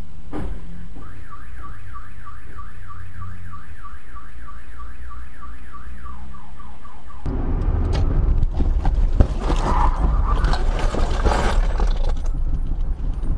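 Car alarm siren sounding: a rising wail repeated about three times a second, turning to quicker rising chirps just before it breaks off about seven seconds in. Then a loud rushing noise with scattered knocks and clatter.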